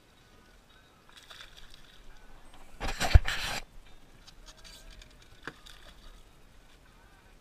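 Hooked bass thrashing and splashing at the water's surface beside the boat, loudest in a short burst of splashing with a thump about three seconds in, then a few smaller splashes.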